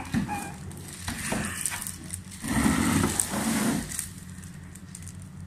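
Plastic wrapping rustling and crinkling as a flat-screen TV in its plastic bag is slid up out of its cardboard box, with a louder stretch about halfway through.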